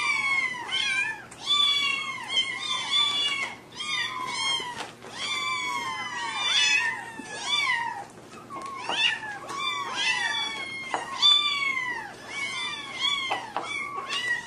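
A litter of young kittens mewing all at once: many short, high-pitched cries that fall in pitch, overlapping one another several times a second.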